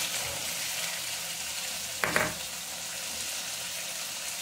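Masala paste sizzling steadily in hot oil in an iron kadhai as it roasts, with one brief louder sound about two seconds in.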